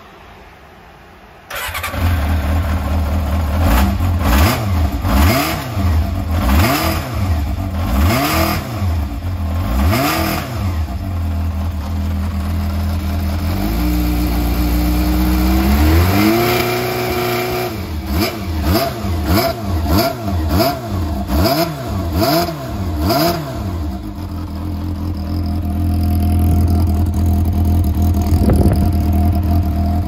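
Yamaha XJR400R's air-cooled inline-four breathing through a Yoshimura full exhaust with carbon silencer: it starts about a second and a half in and is blipped again and again, revs rising and falling. Around the middle it is held at raised revs, then climbs higher and drops, followed by more blips before it settles to a steady idle for the last few seconds.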